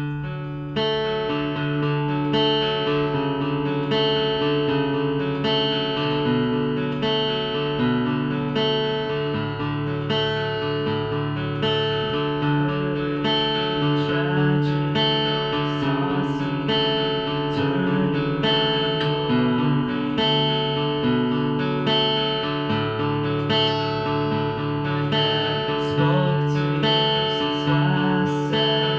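Solo acoustic guitar playing the opening of a song, ringing chords and picked notes with no voice.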